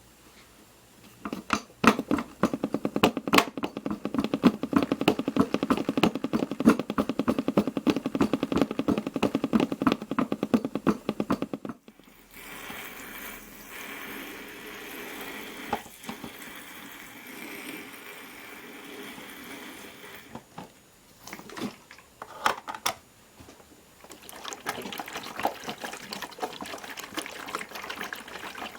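Piko WS5522 washing machine moving into its final rinse: a fast, loud clatter for about ten seconds, then a steady rush of water filling the machine, with trickling and splashing near the end.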